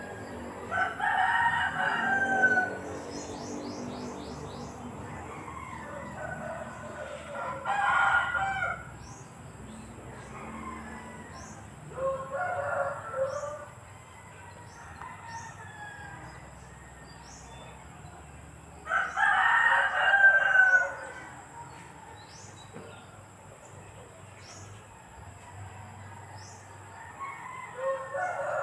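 A rooster crowing five times, each crow about two seconds long and several seconds apart, with faint high chirps in between.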